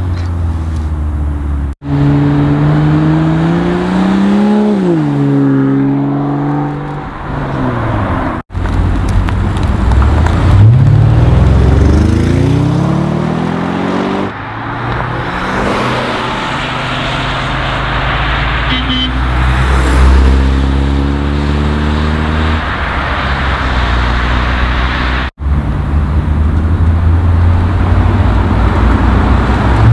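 Performance cars pulling away one after another, among them an Audi RS6 Avant, each engine note rising as it accelerates and dropping back at gear changes. The sound cuts off sharply three times between clips.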